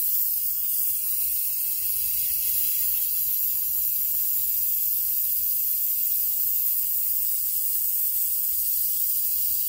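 Air-operated vacuum brake bleeder hissing steadily as compressed air drives it, drawing brake fluid and air out through the hose on the wheel's bleeder screw.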